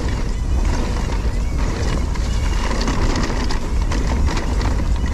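Husqvarna MC4 electric mountain bike ridden along a dirt and sand trail: a steady noise of tyres on the ground and the bike clattering over bumps, with wind rumble on the microphone.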